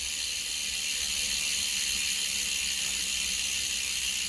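Oggi 7.5 mountain bike rear wheel spinning freely, the freshly lubricated freehub coasting with a steady soft whir. The hub, just regreased and adjusted at the locknuts, turns smoothly without binding.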